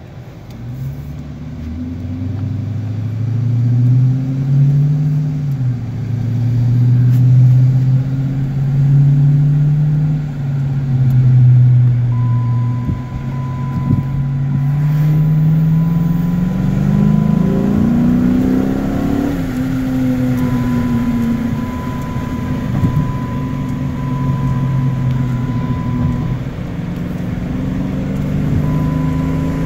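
Chrysler 300C's Hemi V8 through a straight-piped exhaust, heard from inside the cabin: a deep, loud exhaust drone that swells several times and climbs in pitch around the middle as the revs rise, then holds steady. A faint high steady tone comes and goes through the second half.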